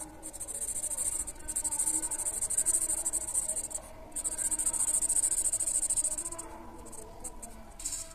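Felt-tip marker scratching across paper in quick back-and-forth strokes as an area is coloured in. There are two long stretches of strokes with a brief pause about four seconds in, then shorter, sparser strokes near the end.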